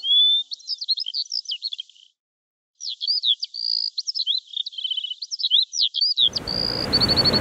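Dense birdsong: many quick chirps, whistles and trills from several birds, breaking off for well under a second a little after two seconds in. About six seconds in, a loud steady rushing noise starts under the birds.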